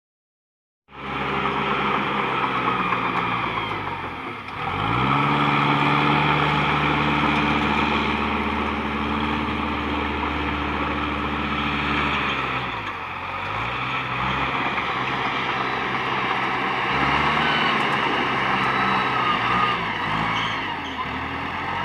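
Komatsu PC200 hydraulic excavator working, its diesel engine coming in about a second in. The engine pitch rises under hydraulic load about four seconds in, holds, then drops and rises again several times as the machine digs and swings.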